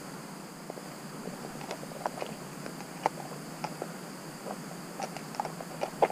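Steady high-pitched insect hum in summer woodland, with scattered light clicks and ticks, and a sharper knock near the end as the camera is handled.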